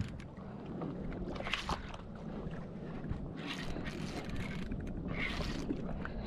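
Wind and water noise around a fishing kayak on open sea, with a handful of short hissing bursts coming every second or two.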